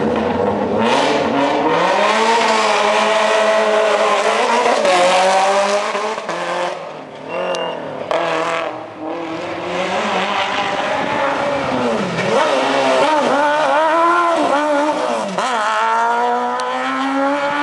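Race car engines accelerating hard on a hillclimb, one car after another. The engine note climbs, drops back at each gear change and climbs again.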